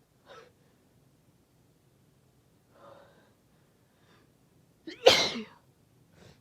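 A woman's induced sneeze about five seconds in, one loud sneeze after a few faint short breaths.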